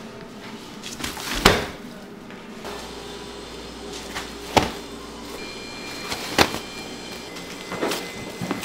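Four sharp knocks, spaced a second and a half to three seconds apart, the first about one and a half seconds in and the loudest, over low steady room noise.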